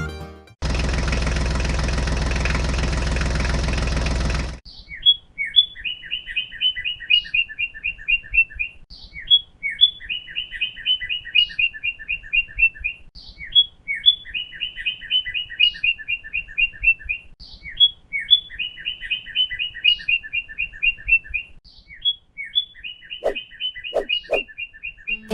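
A loud, steady mechanical noise like a running engine for about four seconds, cutting off suddenly. Then a bird chirping in quick, evenly repeated runs of high chirps.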